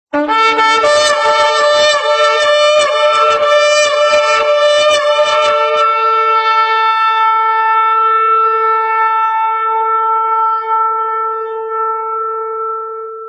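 One long shofar blast: rough and wavering for about the first six seconds, then held steady on one note and fading out at the end.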